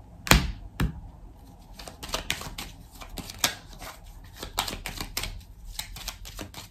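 A deck of reading cards being shuffled and handled: two sharp snaps in the first second, then a run of light, irregular card clicks and flicks.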